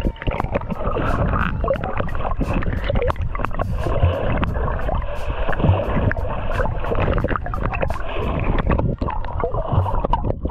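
Water sloshing and splashing around an action camera held by a swimmer at the surface, with many small sharp splashes. It goes under the water and comes back up near the end.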